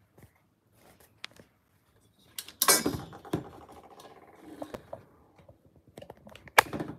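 Handling noise from a phone camera being moved and repositioned by hand: rubbing and knocking close to the microphone, with a loud knock about two and a half seconds in and a sharp click near the end.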